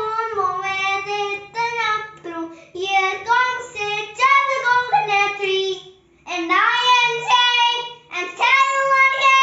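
A young boy singing on his own without accompaniment, in short melodic phrases, with a brief pause about six seconds in.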